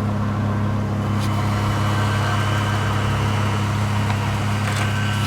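Vehicle engine idling steadily with a constant low hum.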